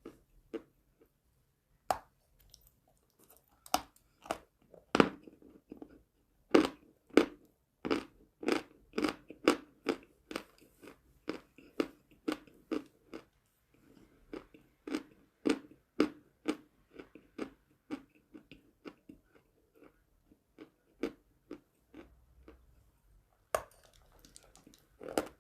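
Close-up crunching and chewing of chalk: a long run of sharp, crisp bites and grinding crunches, about two a second, loudest through the middle and thinning out toward the end.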